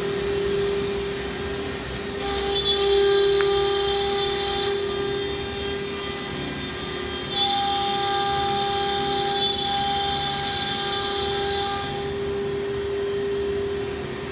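The 9 kW spindle of an ATC CNC router running with a steady whine while cutting a wooden board. A higher, brighter whine joins in twice, for a few seconds each time, about two seconds in and again past the middle.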